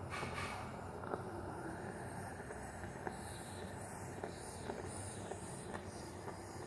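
Moka pot on a gas burner near the end of brewing, as the coffee is pushed up by steam: a low steady hiss with a few faint scattered ticks.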